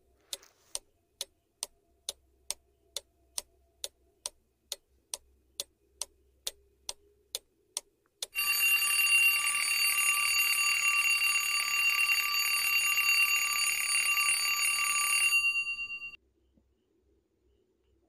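Clock ticking at about two ticks a second for about eight seconds, then an alarm clock bell ringing loudly for about seven seconds and cutting off: a countdown timer running out, marking that the answer time is up.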